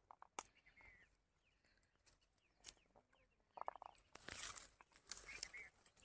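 Near silence, with a few faint clicks and some faint short bird calls in the second half.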